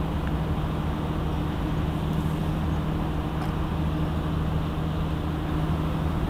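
Steady low engine hum with a constant pitch over a general urban rumble.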